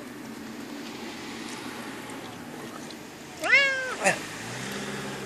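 Domestic cat in a carrier meowing: one loud, drawn-out meow about three and a half seconds in that rises and then falls in pitch, followed half a second later by a brief second cry.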